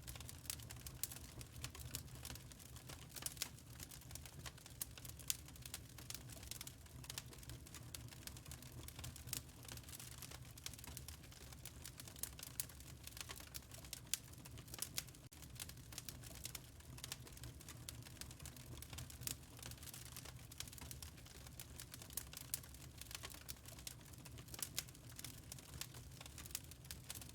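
Wood fire crackling in a fireplace: dense, irregular small pops and snaps from the burning logs over a steady low rumble.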